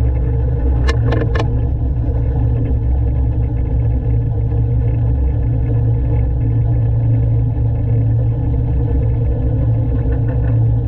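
Diesel engine of a 1970s Poclain LC80 excavator running steadily under a loud low drone, with three sharp metallic clanks about a second in.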